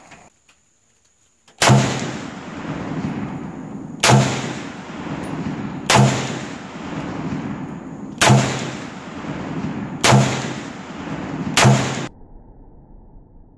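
Six shots from an M1 Garand .30-06 semi-automatic rifle, fired about two seconds apart, each ringing out until the next. The sound starts after a second and a half of near silence and cuts off abruptly after the sixth shot.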